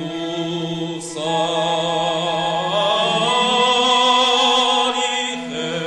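Mixed church choir singing a slow hymn in long, held notes with vibrato, over a steady low held note. The voices swell about a second in and ease off near the end.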